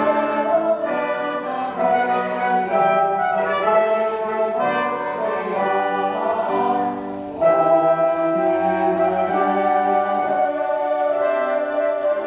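Mixed choir singing held chords with grand piano and a few other instruments accompanying. About seven seconds in the sound briefly drops, then swells back in.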